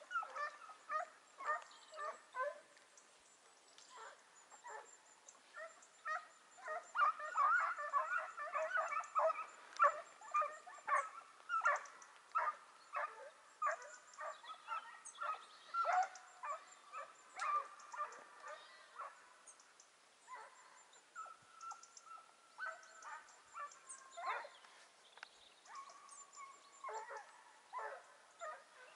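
A pack of hare hounds baying and yelping on a hare's scent trail, a steady stream of short calls that is thickest and loudest about a quarter of the way in.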